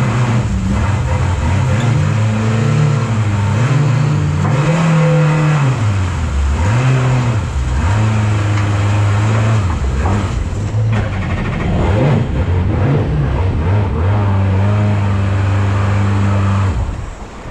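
Jetboat engine revving hard under load, its pitch swinging up and down again and again while towing a stranded jetboat off the bank by a rope. The engine drops back near the end.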